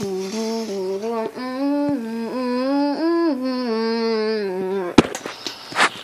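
A person humming a tune in held notes that step up and down, which stops about five seconds in with a sharp click, followed by a short loud noisy burst.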